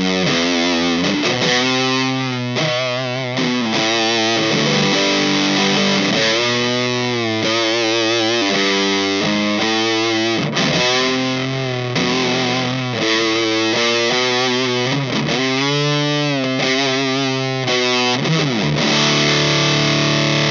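Electric guitar played through a Big Muff Ram's Head–style fuzz pedal: thick, sustaining fuzz notes, several bent and shaken with wide vibrato. A long note rings out near the end.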